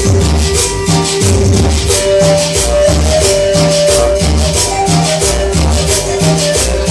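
Cumbia music played loud, with a pulsing bass beat, held melody notes, and quick, even rattling percussion strokes, about four a second.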